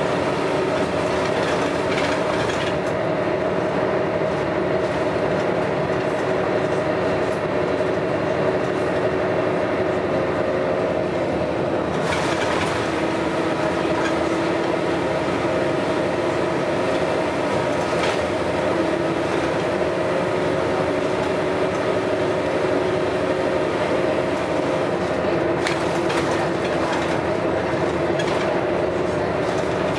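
Scania L113CRL bus's 11-litre six-cylinder diesel engine running under way with a steady loud drone whose pitch sags a little and then rises again near the end, along with running and rattling noise and a few short, sharp knocks.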